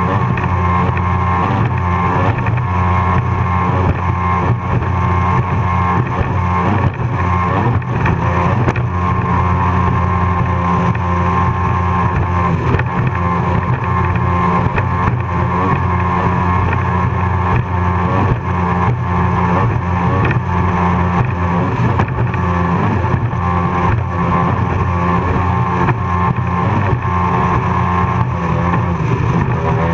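Racing powerboat's engines running hard at a steady pitch as the boat runs at speed over choppy water, with wind and water noise on the onboard microphone.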